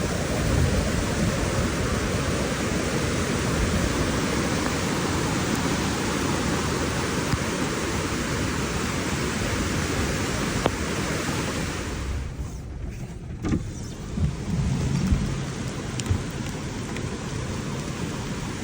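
Rushing floodwater, a loud, dense, steady noise with a low rumble. It drops away briefly about twelve seconds in, then continues a little quieter.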